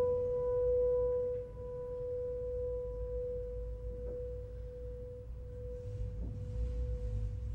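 Music: a single clear note, struck just before, rings on as a long steady tone, dropping in level after about a second and a half. A low rumble lies underneath, and a faint hiss comes in near the end.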